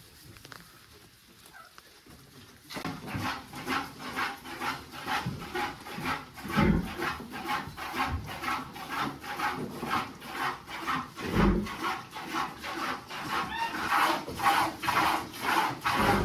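Rhythmic rasping or swishing strokes, about two a second, starting a few seconds in and going on steadily, with two dull thumps partway through.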